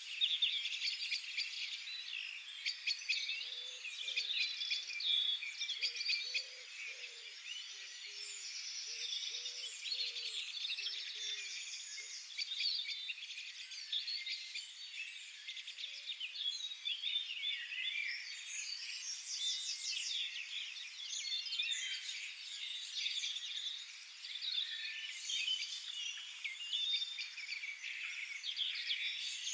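A chorus of many songbirds singing at once, a dense mix of high chirps and fast trills. A few seconds in, a low note starts repeating over and over, one to two times a second, and stops at about twelve seconds.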